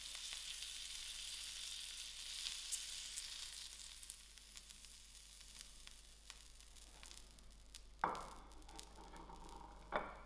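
Chicken and vegetable skewers sizzling on a hot stovetop plancha griddle, the sizzle dying down after about four seconds as they come off the heat. Two sharp clinks near the end.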